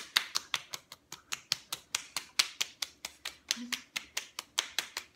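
Rapid, even run of open-hand slaps against the cheeks, about six or seven sharp smacks a second.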